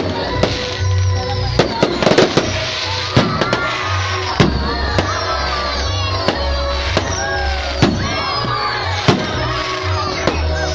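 Fireworks going off in a rapid string of sharp bangs, about one to two a second, with many falling whistles, over loud background music with a heavy bass.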